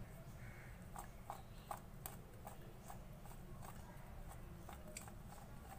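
Raw potato sticks being tossed and mixed by hand in a bowl to coat them with cornflour and salt: faint, irregular soft clicks and taps, about two a second.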